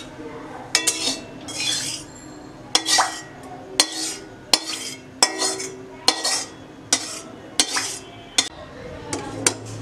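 A metal spatula scraping and clinking against the inside of a metal wok, spreading a little oil around the pan. There are repeated sharp clinks, about one a second, each followed by a short scrape.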